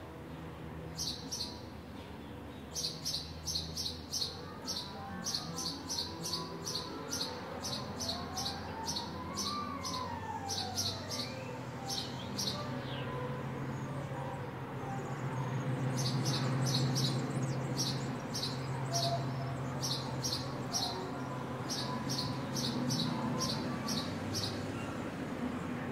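House sparrow chirping over and over, about two chirps a second, in two long runs with a short pause midway. Behind it a single wailing tone rises and then falls near the middle, and a low drone swells and fades in the second half.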